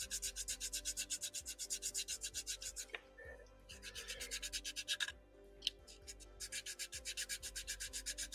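Quick back-and-forth sanding strokes on a grey plastic scale-model part, about six strokes a second, in three runs with short pauses about three and five seconds in.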